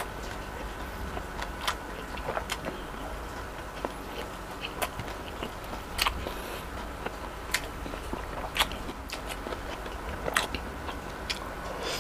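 Close-up eating of fried chicken wings: chewing with sharp, irregular crunches and clicks, the loudest around the middle and near the end. Steady rain noise lies underneath.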